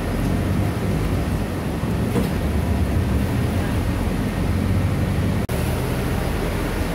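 Steady low rumble of a moving city bus's engine and road noise, heard from inside the cabin, with a momentary dropout about five and a half seconds in.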